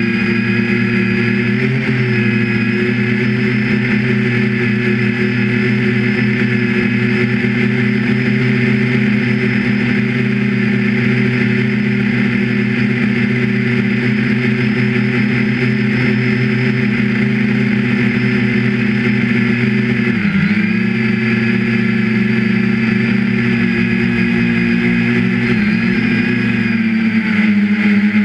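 3DR Iris quadcopter's electric motors and propellers running as a steady multi-tone drone, heard close up from the camera mounted on the craft. The pitch dips briefly and recovers about twenty seconds in.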